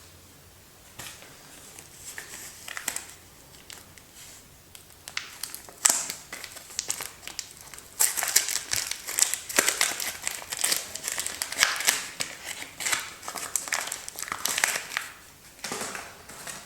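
Soap wrapper crinkling as a bar of soap is unwrapped by hand: scattered crinkles at first, then steady crinkling and crackling from about halfway in until just before the end.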